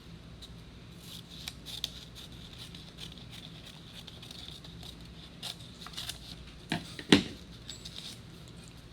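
Scissors cutting paper: scattered short snips and rustles, with the loudest pair of snips about seven seconds in.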